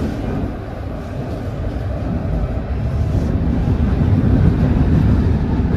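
Paris Métro train running: a steady low rumble that grows louder about halfway through.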